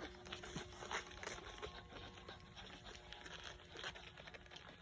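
Faint small clicks and rustling from a litter of newborn Shih Tzu puppies nursing and shuffling against their mother and the bedding.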